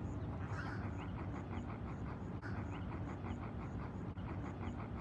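Roseate spoonbill making a soft, rhythmic grunting call, short pulses at about four a second, over a steady low background rumble. A faint high-pitched tick repeats alongside it.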